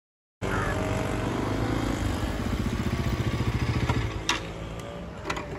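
Bajaj Pulsar motorcycle's single-cylinder engine running steadily with an even beat, easing a little near the end, with two sharp clicks about four seconds in.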